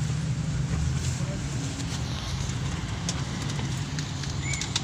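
Steady low engine and road rumble heard from inside a moving passenger jeepney's cabin, with a few light rattles and clicks.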